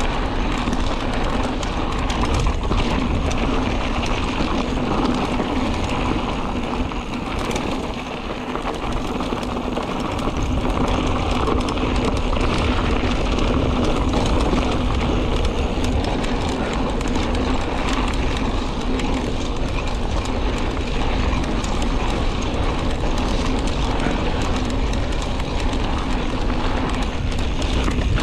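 Mountain bike rolling over a loose dirt and gravel trail: tyres rumbling and crunching, the bike rattling over bumps, with wind buffeting the microphone.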